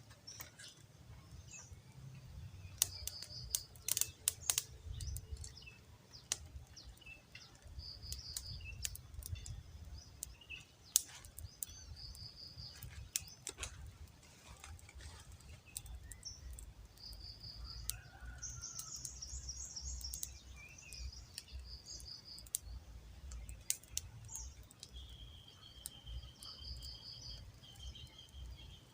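Small birds calling: short chirping trills repeat every few seconds, with a longer, lower call near the end. Scattered sharp clicks, a cluster of them a few seconds in, sound over a steady low rumble.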